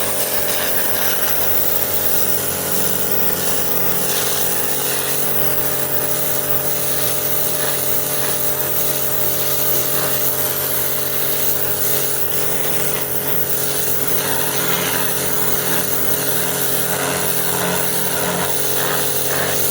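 Kärcher K5 electric pressure washer running steadily without a break, its motor humming under the hiss of the high-pressure water jet.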